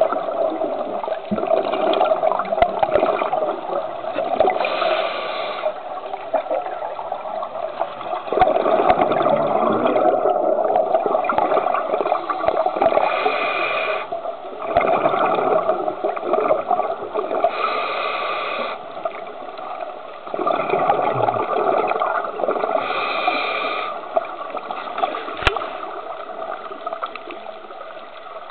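Scuba diver breathing through a regulator underwater: the exhaled bubbles gurgle, and a hissing breath comes about every four to five seconds. It gets quieter near the end.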